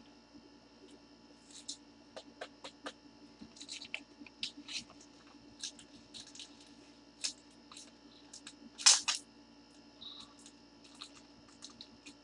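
Trading cards and foil pack wrappers being handled: scattered light clicks and crinkles, with a louder crackling cluster about nine seconds in, over a faint steady hum.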